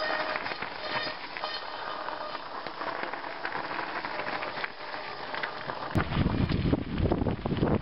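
Mountain bike tyres crunching and rattling over loose scree as riders roll past, with a brief squeal from a brake at the start. About six seconds in, it cuts to the low rumble of wind buffeting the microphone of a camera riding along on a bike.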